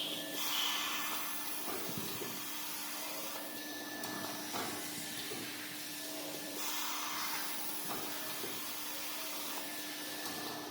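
Maxi roll paper band saw cutting machine running: a steady hum under an even hiss, with a faint knock every second or two.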